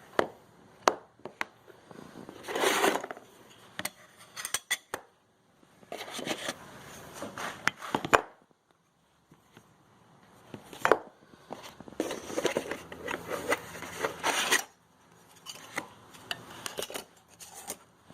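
Unboxing and handling of grinding-jig parts: metal pieces clinking and knocking together, with bursts of rustling and scraping packaging, and a pause of about a second and a half around the middle.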